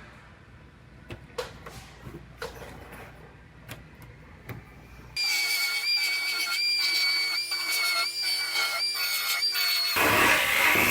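A few light metal taps and clicks, then about five seconds in a pneumatic body-shop tool starts up with a loud, steady, high-pitched whine and air hiss, dipping briefly about twice a second as it cuts. Near the end a broader, rougher tool noise takes over.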